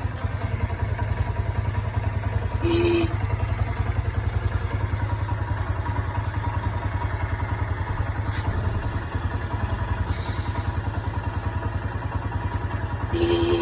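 Motorcycle engine idling steadily while its electric horn gives two short beeps, one about three seconds in and another near the end.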